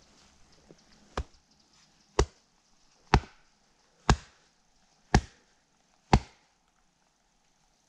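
Kindling being split by hand: six sharp chopping strikes of a blade into wood, about one a second.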